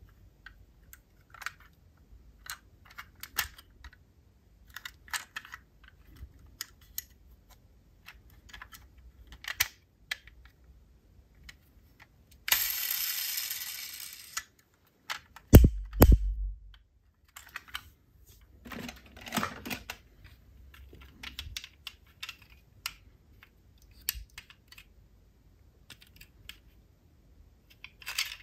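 Diecast metal toy cars being handled, with scattered light clicks and clatter. About halfway through comes a loud rushing hiss that fades over two seconds, then two heavy thumps, and a burst of clatter a few seconds later.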